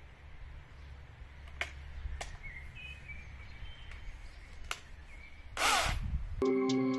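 Outdoor ambience: a low rumble with a few faint clicks and a brief bird chirp, then a loud rushing noise lasting under a second near the end, cut off abruptly by background music.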